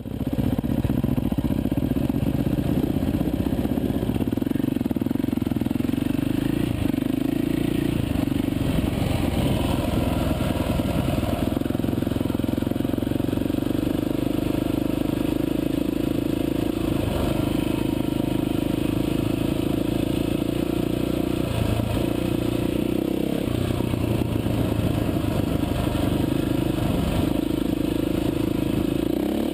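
Off-road dirt bike engine running under way, heard close from the bike itself. The engine note is steady and loud, stepping up and down several times as the throttle changes.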